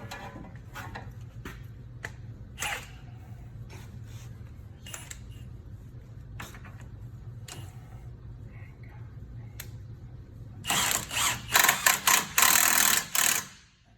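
Impact wrench hammering in several short, loud bursts near the end, driving a bolt on a pickup's wheel hub assembly. Before it there are scattered tool clinks over a steady low hum.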